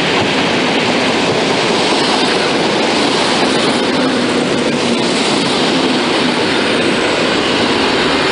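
A train running past on the rails: a loud, steady rush of wheel and rail noise.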